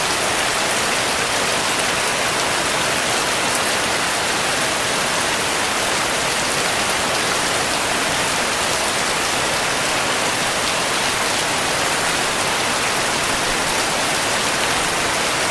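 Heavy rain falling steadily: a dense, even hiss of drops with no breaks or changes.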